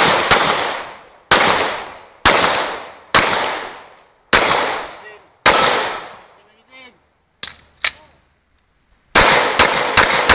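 Glock 17 9mm pistol firing during a practical shooting stage: seven shots in the first five and a half seconds, a gap with two faint clicks, then a fast string of about five shots near the end. Each shot rings out in a long echo from the enclosed hallway.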